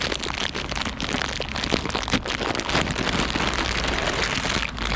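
Rain pattering steadily close to the microphone, a continuous hiss dotted with many small ticks of drops.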